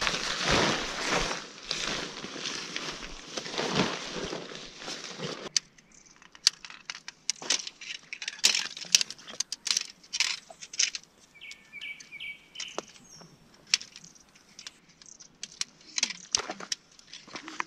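Nylon tent fabric rustling as it is spread out, cutting off abruptly about five seconds in, followed by irregular sharp clicks of tent pole sections being snapped together. A bird chirps briefly about twelve seconds in.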